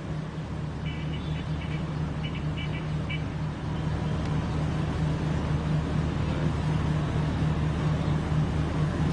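Steady outdoor rumble with a constant low hum, like road traffic, and a few faint high chirps about a second in. No distinct blasts stand out.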